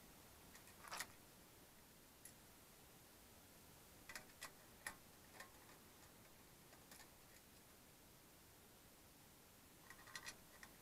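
Faint, scattered clicks of a small screwdriver turning screws out of an LCD monitor's sheet-metal frame: one about a second in, a few more midway, and a quick cluster near the end.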